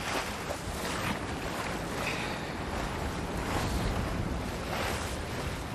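Steady wind rumbling on the microphone, with water washing against a sailboat's hull.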